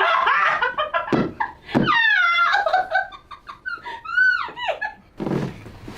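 A person's high-pitched wordless cries, rising and falling in long squealing arcs, in reaction to a chiropractic spinal adjustment. There are two short sharp sounds about a second in.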